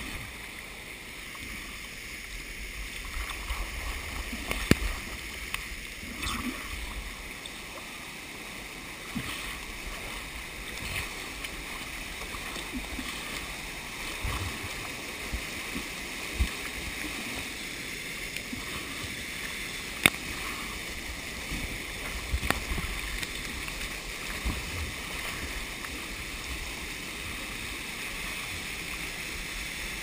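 Small waterfall pouring over boulders into a pool: a steady rush of water heard from right at the pool's surface, with water lapping and splashing close by. A few sharp knocks stand out, the loudest about five and twenty seconds in.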